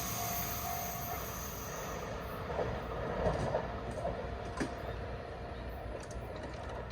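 JR Central 313 series electric train moving away after passing a level crossing, its rail noise fading, with a faint wheel squeal dying out in the first second. A single sharp click a little past the middle.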